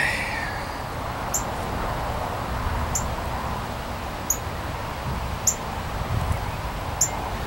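Rustling and handling noise in the open air, with a short high chirp repeated about every second and a half.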